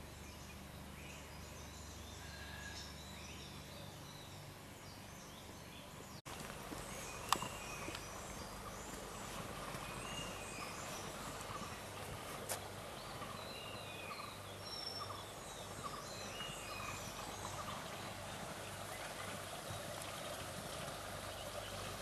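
Many small birds chirping and calling together, a thick layer of short overlapping calls. A brief dropout comes about six seconds in, after which the chorus is a little louder, with two sharp clicks soon after.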